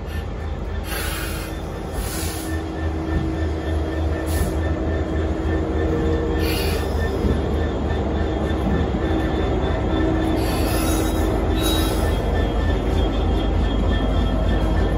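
Diesel locomotive running on a heritage line, its low rumble growing steadily louder as it comes closer, with several brief high-pitched noises from the wheels or brakes.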